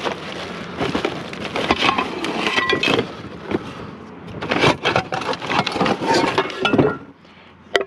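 Metal pots and pans clanking and clattering as they are rummaged through and shifted in a pile, with a couple of short ringing tones; the clatter dies down about seven seconds in.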